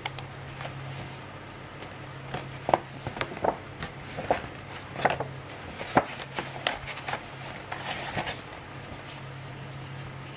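Paper shopping bag and a card envelope being handled: a string of short paper crinkles and rustles over a steady low hum.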